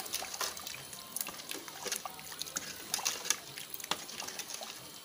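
A ladle stirring liquid curry broth in a metal pot: sloshing liquid with many small clicks and taps spread throughout.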